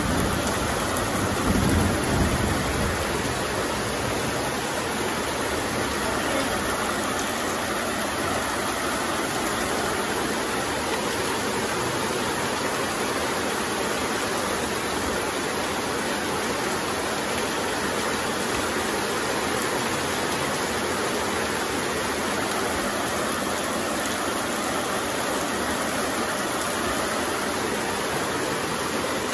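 Heavy rain falling steadily, an even hiss of downpour on the ground and roof.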